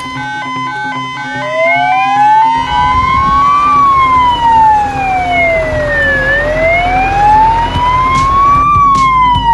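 Fire engine siren wailing, its pitch rising and falling slowly in long sweeps, over a low engine rumble; the end of a short musical jingle is heard in the first second.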